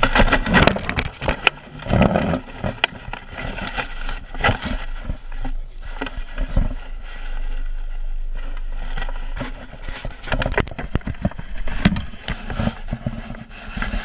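Close handling noise of a mesh landing net being worked by hands: a rapid, irregular run of knocks, clicks and scrapes as the net and frame rub and bump right at the microphone while a fish is freed from the mesh.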